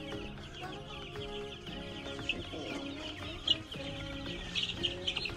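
A brooder full of young chicks, about two weeks old, peeping continuously in a dense chatter of short high chirps, over background music.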